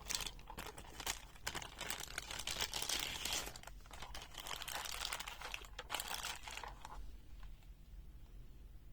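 Crinkling and rustling handling noise, with small clicks, as the multimeter is brought out and handled; it dies away about seven seconds in.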